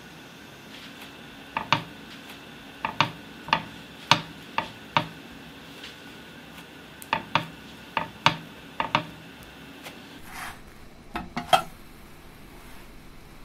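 Metal spatula clinking against a nonstick grill pan while the sandwich is pressed and turned: about a dozen sharp clicks, mostly in quick pairs, then a short scrape and a few more clinks near the end.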